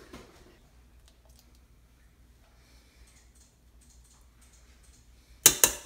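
Kitchen utensils being handled: faint light clicks and handling noise, then two sharp knocks in quick succession about five and a half seconds in.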